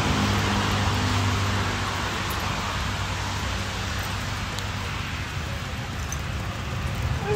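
Steady road noise and a low engine hum inside a moving car.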